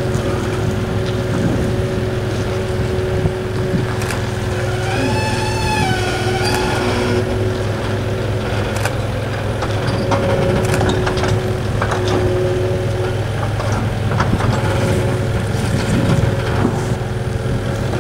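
Steady running of the engine moving a wheeled boat stand with a sailboat aboard, a constant low hum with a steady whine over it and scattered knocks and rattles from the rig. About five seconds in, a brief wavering tone rises and falls for a second or so.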